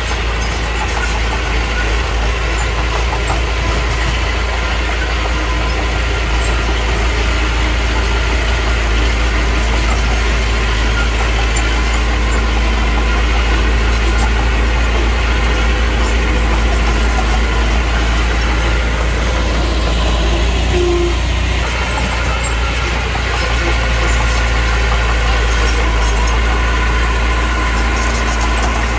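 Engine of a heavy earthmoving machine running steadily, with a deep low rumble.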